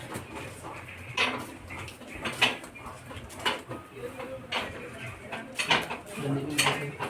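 Metal tools knocking and clinking against metal, sharp strikes about once a second, during work refitting a motorcycle's rear wheel.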